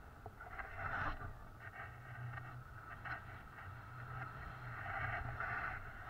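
Wind rushing over the microphone of a camera held out from a tandem paraglider in flight: a steady low rumble with louder gusts about a second in and near the end.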